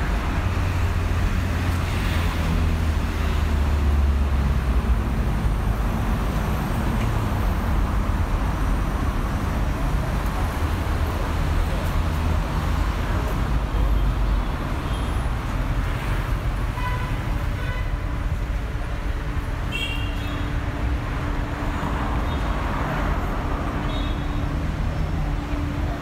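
City street traffic: motor vehicles passing with a steady low rumble, heaviest in the first half, with a few brief high tones in the second half.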